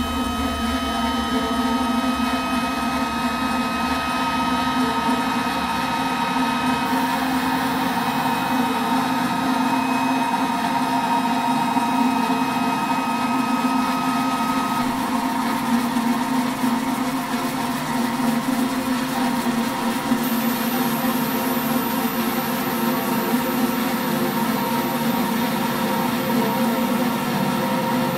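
Live electronic drone and noise music: a dense, steady, machine-like wash with several held tones and a low rumble. One mid-high tone drops out about halfway through, and a thin, very high whine comes in about two-thirds of the way in.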